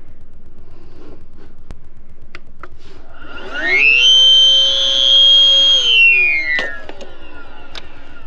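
Battery-powered electric air inflator running briefly: its motor spins up with a rising whine, holds a steady high whine for about two seconds, then winds down.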